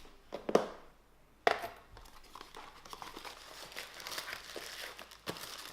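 Packaging crinkling and rustling as it is handled, after a few sharp knocks in the first second and a half.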